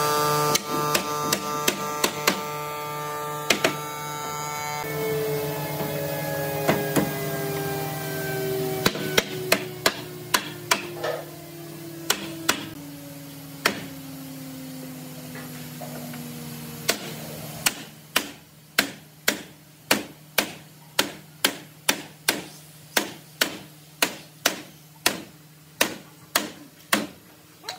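Hammer strikes, scattered at first and then a steady run of about two blows a second through the last ten seconds. Under the first half, the steady whine of a workshop machine begins to slide slowly down in pitch about five seconds in, as the machine spins down and dies away.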